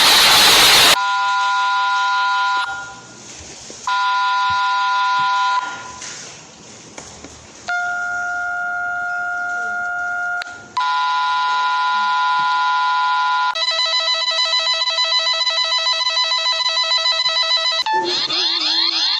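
Synthesized Emergency Alert System-style alarm tones: a loud burst of noise, then a series of held electronic chords about two to three seconds each with short gaps, then a fast pulsing tone, and rising sweeping tones near the end.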